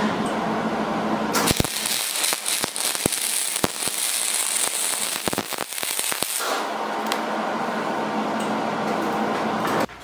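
MIG welder laying a weld bead on steel, a steady crackling sizzle full of sharp pops and spatter. It starts just over a second in and stops after about five seconds.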